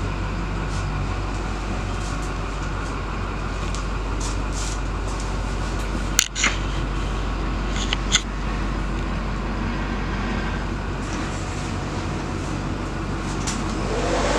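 Steady hum and blower rush inside a bus cabin, from the running air conditioning and idling engine, with two sharp clicks about six and eight seconds in.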